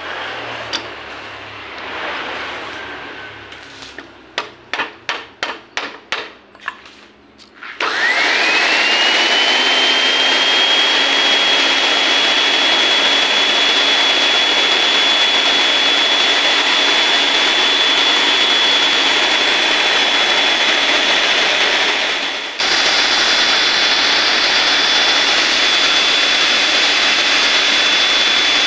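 A run of about ten quick clicks, then a magnetic drill's electric motor starts: its whine rises in pitch and settles into a steady high whine as it runs at full speed. The drill spins a newly made arbor and annular cutter free, without cutting.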